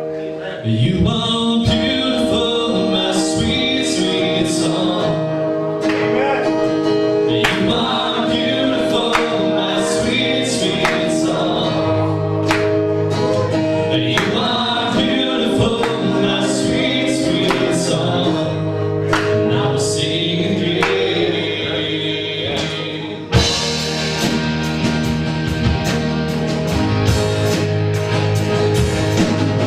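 Live band playing a Christian song: acoustic and electric guitars, keyboard and drums, with singing. About three-quarters of the way through the band comes in harder, with cymbals filling the top.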